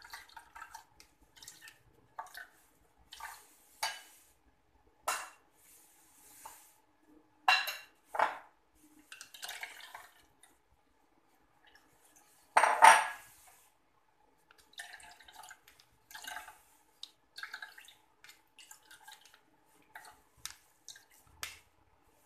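Scattered clinks, knocks and scrapes of a metal ladle and glass bowl against a plastic sieve and pot, with dripping liquid, as grated coconut is pressed through the sieve to strain out coconut milk. The loudest is a longer clatter about halfway through, as the grated coconut is tipped from the bowl into the sieve.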